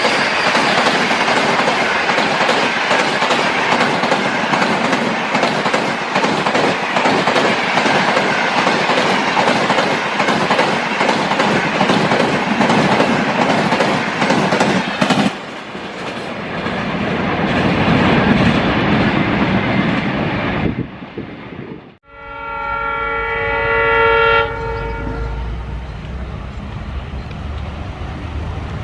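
An express train running past at speed, its wheels clattering over the rail joints for about fifteen seconds, then easing into a lower rumble. About 22 s in, a diesel locomotive's horn sounds one chord of several tones for about two and a half seconds, followed by the low rumble of the engine.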